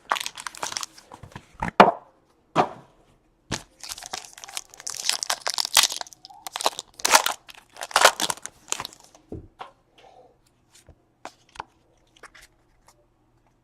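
Plastic and paper packaging of a trading-card box being torn open and crinkled, in a quick series of rustling tears that thin out about nine seconds in to a few light clicks and taps.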